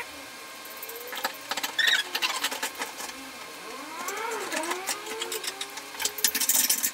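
Small hand clamps being fitted and tightened onto a plastic hinge-drilling jig on a cabinet door: handling clicks and knocks, short squeaks through the middle, and a quick run of clicks near the end.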